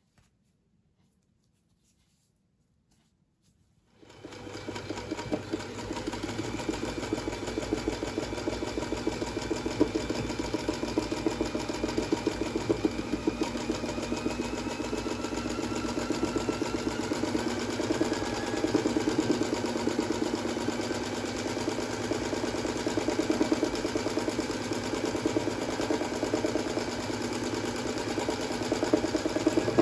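Singer 201K electric sewing machine, freshly stripped, lubricated and serviced, starting up about four seconds in and then running at a steady speed with a fast, even mechanical rhythm.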